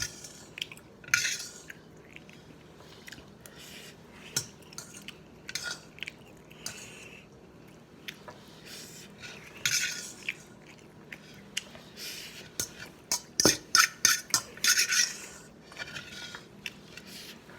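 Eating utensils clinking and scraping against a dish of noodles in scattered taps, with a quicker run of clicks past the middle.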